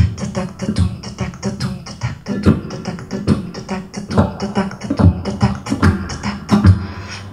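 A woman chanting the onomatopoeia "tatac-tatoum" over and over into a microphone in a quick clattering rhythm, a vocal imitation of train wheels beating over the rail joints, over a sustained electric guitar note.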